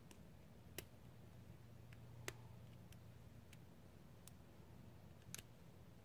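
Lock pick clicking against the pins inside a 2-inch brass U-Haul padlock under tension, a few faint sharp clicks scattered about one a second, the loudest a little over two seconds in, over a faint low hum.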